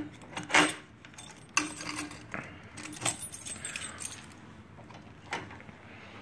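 A bunch of metal keys jangling in a hand, in scattered irregular clinks, the loudest about half a second in.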